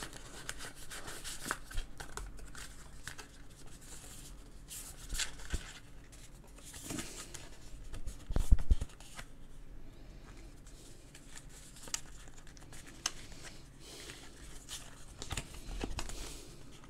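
Paper and thin cardboard rustling and scraping as a printed manual is handled in its card folder, with scattered light taps and a louder handling knock about eight and a half seconds in.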